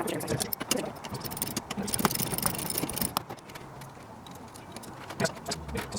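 Irregular small clicks and knocks of hand work on metal parts, with a brief hiss about two seconds in.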